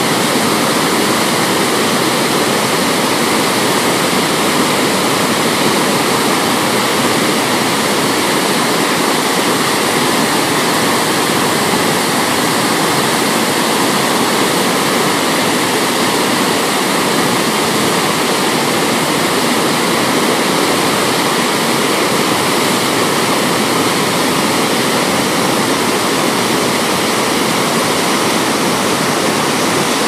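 Hogenakkal Falls on the Kaveri river: a steady, loud rush of water pouring over the rock ledges, unbroken throughout.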